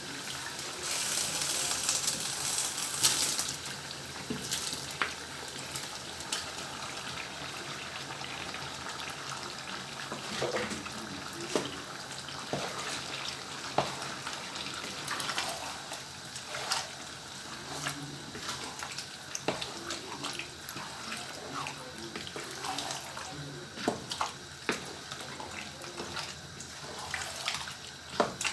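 Tomatoes going into hot oil in a stew pot: a loud burst of sizzling in the first few seconds settles to a steady sizzle, with scattered clicks of a spoon against the pot.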